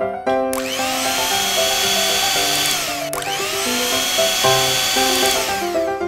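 Battery-operated toy blender's small electric motor whirring, switched on twice. Each run lasts about two and a half seconds, with a whine that rises as it spins up and falls as it winds down. The second run starts about three seconds in.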